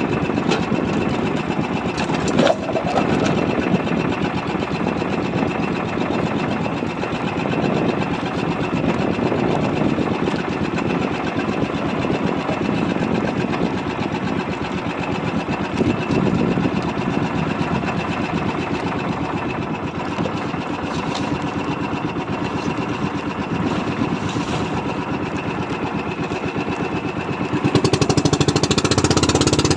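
Small fishing-boat engine running steadily with a rapid knocking beat, growing louder near the end.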